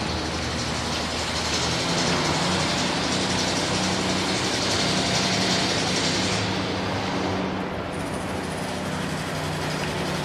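Rivet hammer generator running steadily, a constant engine hum under a dense hiss. The low hum shifts about two seconds in, and the upper hiss thins away between six and eight seconds in.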